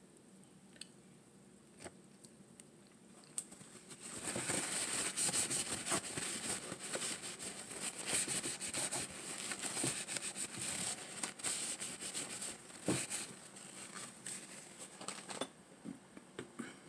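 Paper crinkling and crumpling close to the microphone, a dense crackly rustle that starts about four seconds in and dies away to a few last rustles near the end.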